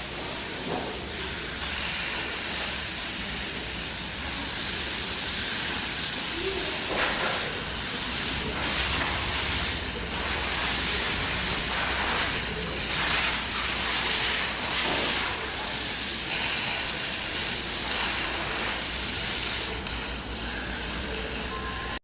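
Steady hiss of metalworking, with a flickering rush strongest in the high end and a low hum underneath.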